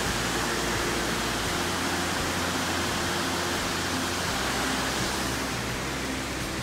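Steady rushing of a waterfall and a fast white-water stream.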